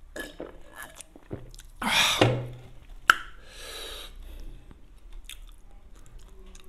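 Mouth sounds of a man drinking from a glass mug: small gulping clicks, then a loud breathy exhale with a short voiced "ahh" about two seconds in. A sharp click follows about a second later, with softer breathing after it.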